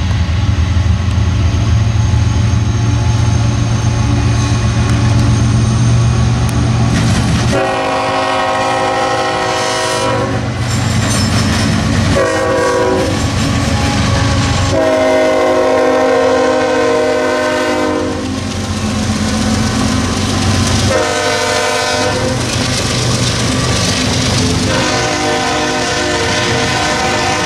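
Diesel freight locomotive rumbling past with a low engine drone. About seven seconds in, its multi-chime air horn sounds a series of long and short blasts, five in all, with the last one held to the end.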